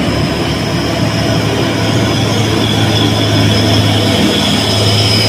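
Heavy diesel engine of a fuel tanker truck running steadily at low revs, its deep hum growing louder toward the end as the truck comes close. A steady high whine runs over it.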